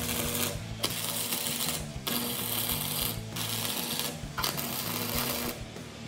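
Wire-feed welder's arc running on steel plate in five bursts of about a second each, with brief pauses between, as the pieces are tack-welded; it stops about five and a half seconds in.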